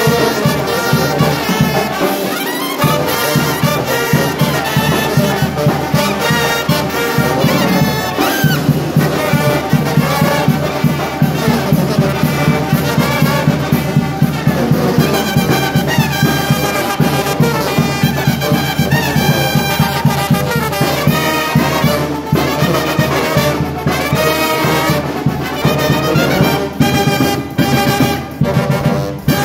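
Oaxacan brass band (banda de viento) playing loudly: trumpets and trombones over a steady beat.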